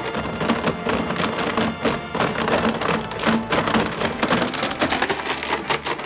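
Blendtec Designer 625 blender running with a WildSide+ jar full of plastic felt-tip markers, the markers smashing and being ground up into a dense, continuous clatter of many rapid knocks against the jar.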